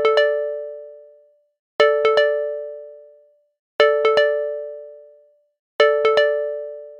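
A bell-like chime sound effect: three quick dings in a row, the triple ding repeating every two seconds and ringing out between repeats.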